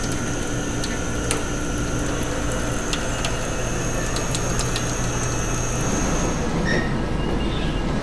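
Automated lamb-carcass cutting machinery running: a steady mechanical hum with a high whine and scattered clicks. The whine stops a little before the end.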